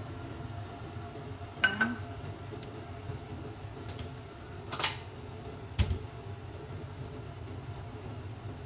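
A small nonstick frying pan clinking and knocking against the metal pan support of a gas hob burner: three separate knocks, the last one dull and low.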